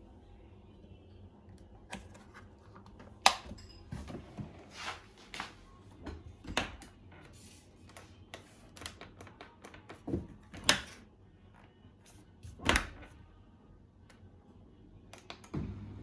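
Irregular clatter of dishes and trays being handled in a dishwasher's racks: a run of light clinks and knocks with a few sharper clacks.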